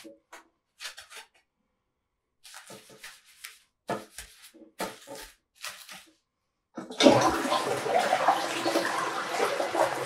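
Toilet brush scrubbing the bowl in short, irregular strokes with pauses between them. About seven seconds in, the toilet flushes: a sudden, loud, steady rush of water that keeps going.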